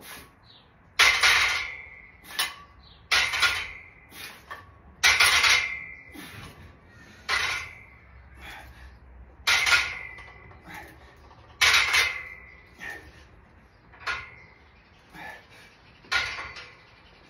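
Steel barbell and iron weight plates clanking with each rep of an overhead press: a sharp metallic clank that rings briefly, about every two seconds, with lighter knocks between.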